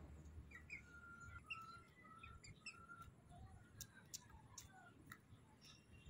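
Faint peeping of young Aseel chickens: a string of short, high chirps, with a few light ticks in the second half.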